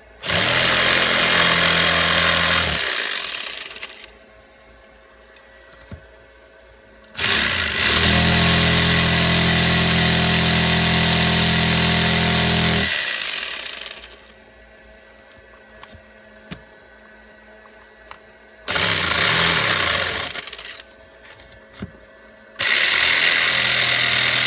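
Handheld power tool cutting a small back-cut notch into wood so a door hinge will sit square. It runs in four bursts of a few seconds each, the longest about six seconds, and each winds down as it is released.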